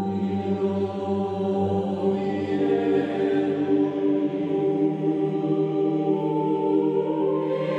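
Choral music: voices holding slow, sustained chords over a low drone that fades out about halfway through.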